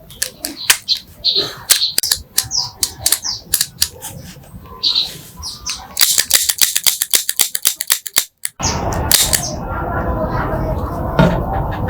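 The restored MP5 being worked and fired: scattered sharp clicks, then a rapid run of sharp cracks for about two seconds. After that a steady noisy background takes over.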